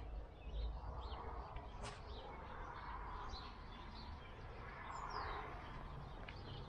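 Small birds chirping faintly and sporadically over a low steady outdoor rumble, with a single sharp click about two seconds in.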